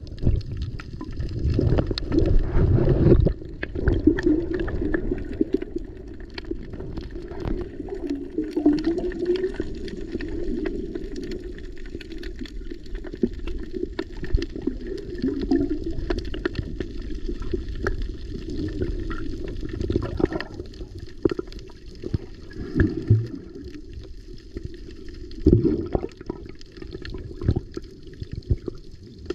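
Muffled water sloshing and gurgling, with scattered small clicks and knocks.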